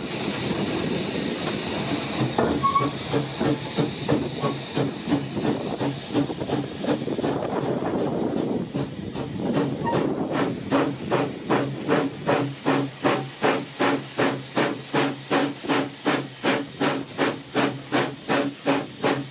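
Small 1860s open-cab steam tank locomotive working along the line, its exhaust chuffing. At first the chuffs are blurred into a steady hiss of steam; from about halfway they come clear and even, about two and a half a second.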